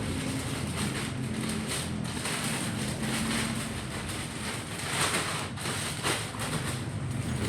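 Motor traffic: a vehicle engine drones steadily under a wash of road and wind noise, which swells briefly about five seconds in.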